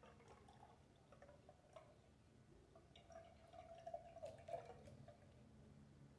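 Faint trickling and dripping of blended cashew-apple juice running from a blender jug through a small metal sieve into a glass jar, a little stronger a few seconds in.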